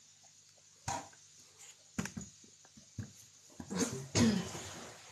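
Handling noise from a phone being turned around: a sharp knock about a second in, a few lighter knocks, then a louder rustling, breathy burst near the end.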